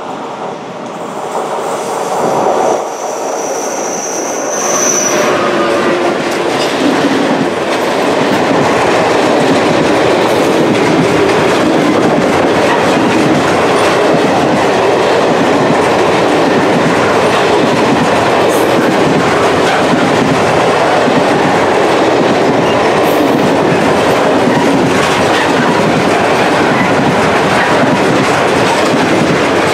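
Freight train of loaded log wagons, hauled by an electric locomotive, passing close by: the sound builds over the first several seconds as it approaches, with a brief high whine a few seconds in. Then a steady loud rumble and clickety-clack of the wagon wheels over the rails.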